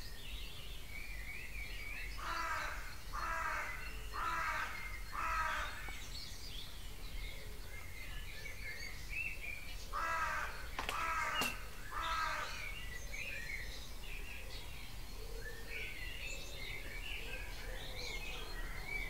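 A crow cawing: four harsh caws about a second apart, then a pause, then three more, over a background dawn chorus of smaller songbirds chirping. A single sharp click comes among the second run of caws.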